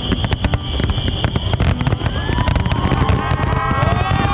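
Fireworks display going off: dense crackling and rapid booming bangs, with several whistles rising in pitch from about halfway through.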